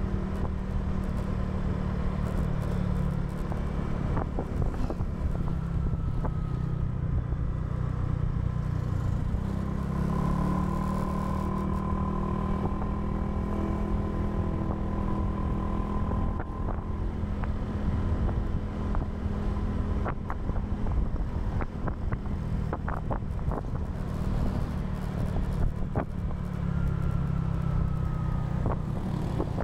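A Honda scooter's small engine running as the bike is ridden along a road, a steady drone that rises in pitch about ten seconds in as it speeds up. Road and wind noise runs under it, with a few short knocks.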